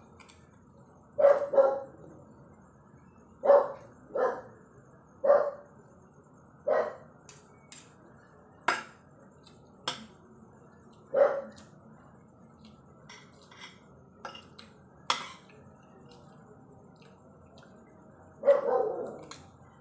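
A dog barking repeatedly, single short barks every second or few, with a longer gap before a final, longer bark near the end. Light clinks of a spoon and fork on plates fall between the barks.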